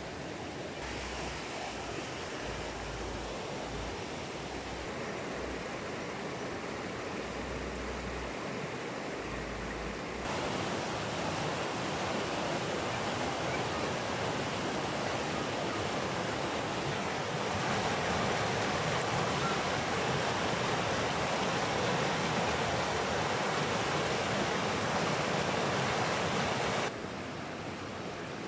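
Steady rush of flowing river water. It gets louder in a step about ten seconds in and again near eighteen seconds, then drops back suddenly near the end.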